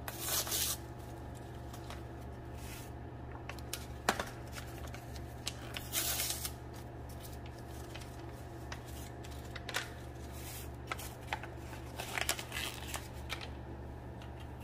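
Paper packets of brown gravy mix rustling and crinkling as they are torn open and emptied into a glass measuring cup of water, in short scattered bursts with a few light clicks, over a steady low hum.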